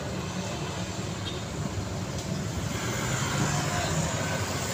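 Road traffic passing close by: small motorcycle engines and car engines running with tyre noise on the road, growing slightly louder near the end as more vehicles approach.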